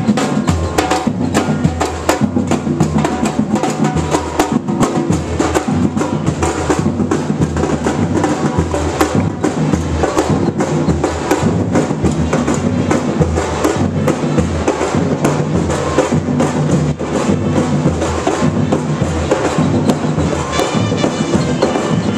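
Marching street band playing: drums and percussion keep a steady beat over a low bass line.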